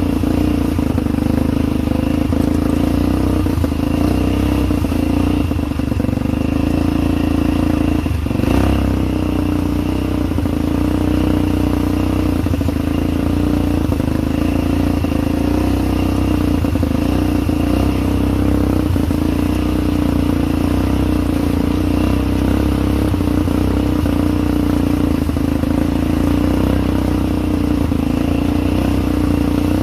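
ATV engine running steadily, with a single brief knock about eight seconds in.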